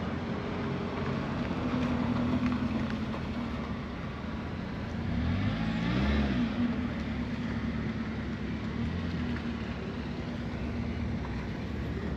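A motor vehicle's engine running steadily, with a vehicle passing close by about six seconds in, getting louder and then fading as it goes past.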